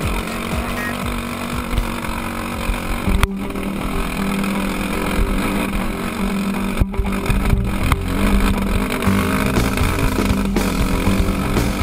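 Dirt bike engine running hard under load on a steep climb, heard close from the rider's own bike, its note holding steady from about three seconds in. A few sharp knocks cut through it.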